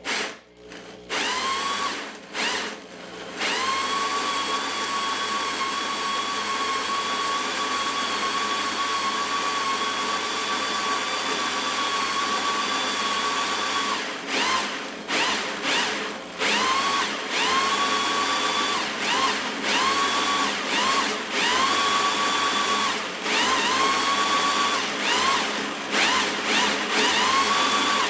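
A power drill turning a Wondermill Junior grain mill through its drill-bit adapter, grinding grain into flour on the stone burrs. After a few short bursts the drill's motor whine runs steadily for about ten seconds, then the trigger is pulsed about once a second, each whine rising quickly and levelling off.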